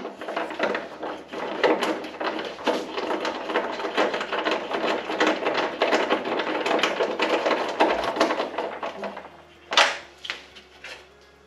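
Short 10 mm wrench tightening M6 nuts on a battery contactor mount: a quick, uneven run of metal clicks, then one louder clank near the end.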